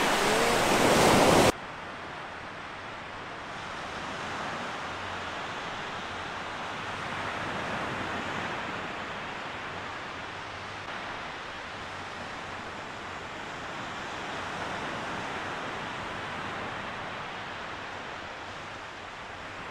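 Small waves washing up on a sandy beach. The surf is loud and close for the first second and a half, then drops suddenly to a softer, steady wash that slowly swells and fades.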